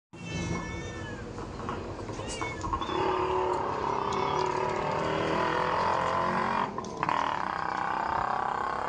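Stray cats meowing, about two meows in the first couple of seconds, over a steady background noise that gets louder about three seconds in.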